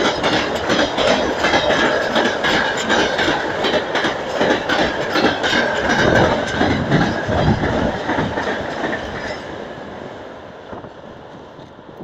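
Freight train of covered hopper wagons rolling past, steel wheels clacking over the rail joints in a quick, uneven rhythm. The sound fades away over the last few seconds as the end of the train moves off.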